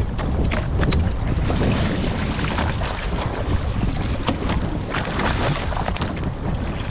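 Boat under way offshore: a steady low rumble, with wind buffeting the microphone and water slapping and splashing against the hull.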